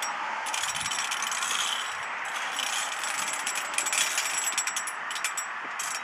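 Metal claws of a Freddy Krueger bladed glove scraping and clattering along a shop window and its ledge, in rapid rattling runs of a second or two with brief breaks.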